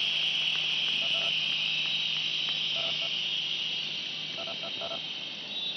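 Many whistles blown at once by a rally crowd, forming a dense shrill hiss that slowly dies away.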